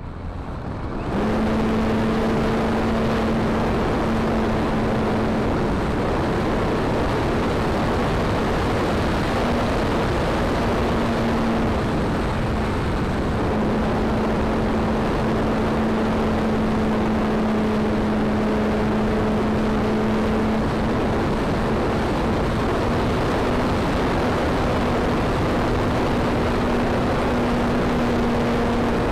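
Seagull 40 RC model airplane's motor and propeller running at a steady drone, heard from a camera on the plane with heavy wind rush. The drone comes in about a second in and holds a near-constant pitch, a little higher towards the end.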